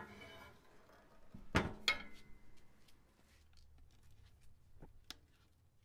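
Steel lid of an offset smoker shut with two quick clanks about a second and a half in, the second leaving a brief metallic ring. A couple of small clicks follow near the end.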